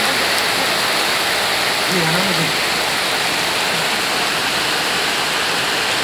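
Heavy rain pouring down, a steady even hiss with no let-up.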